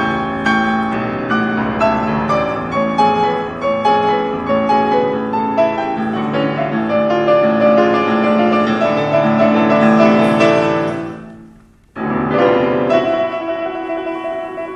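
Classical piano music with many quick notes, fading out about eleven seconds in; a moment later different music with held notes starts suddenly.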